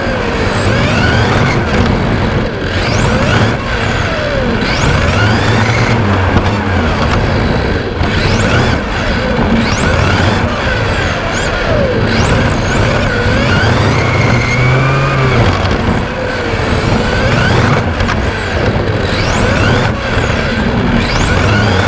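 Onboard sound of a 1/10 Xray T4 electric touring car's LRP X20 4.5-turn brushless motor: a high whine that rises in pitch again and again under acceleration and drops off under braking, over a steady rushing noise from the drivetrain and tyres.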